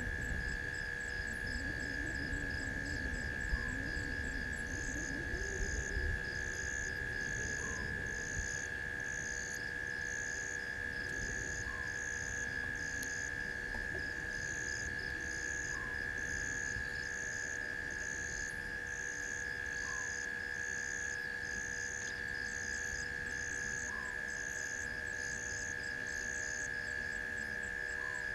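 Night insect chorus: a steady high-pitched drone with a high chirp repeating about every 0.8 seconds, and a faint short call about every two seconds.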